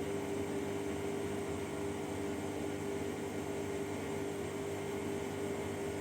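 Bosch washing machine in its spin cycle, the drum spinning at a steady speed: an even whirring hum with a steady motor whine.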